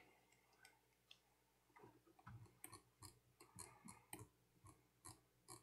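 Near silence, with faint, irregular computer keyboard clicks from about two seconds in.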